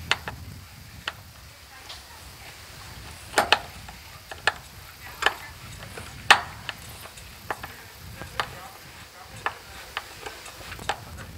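Hand screwdriver driving a screw through a metal anchor-mount bracket into a pontoon deck. It gives sharp, irregular clicks and ticks, roughly one a second.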